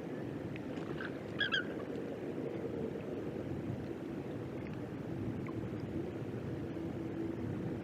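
Steady rush of river water with a low hum under it, and a short burst of high bird calls about a second and a half in.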